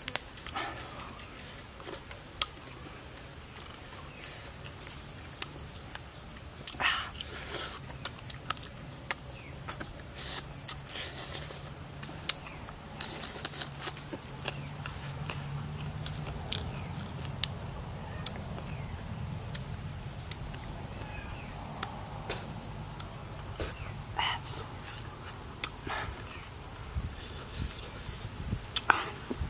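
A steady high-pitched insect drone, with scattered short clicks and smacks from eating by hand: fingers picking at grilled fish and chewing.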